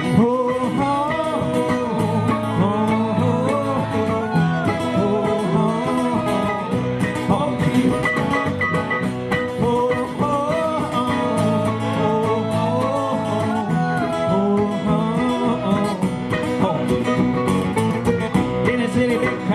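Live band playing an upbeat country-bluegrass song: strummed guitars and a steady beat under a bending melodic lead line.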